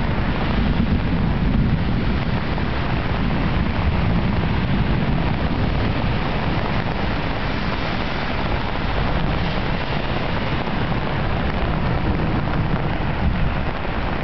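Torrential rain falling steadily on a flooded street, a dense even hiss with a heavy low rumble underneath.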